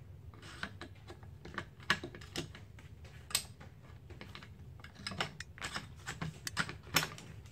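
Light metal clicks and scrapes of an AR-15 bolt carrier group being slid into the upper receiver: an irregular run of small clicks with a few sharper ones.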